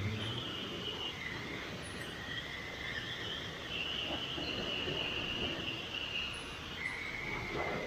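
Steady hiss of a water spray jet striking a motorcycle's wheel, frame and engine area. A high tone in the hiss shifts up and down as the jet sweeps across the parts.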